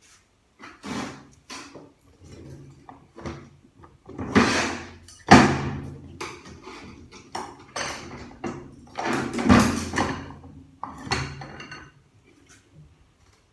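Metal parts of an automatic transmission being handled and set down: an irregular run of clanks and clatters, a few loud knocks with brief metallic ringing, and a scrape or two in between.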